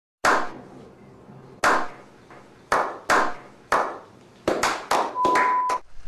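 Slow hand claps, about ten single claps with echoing tails, spaced more than a second apart at first and quickening toward the end. A short steady beep sounds near the end.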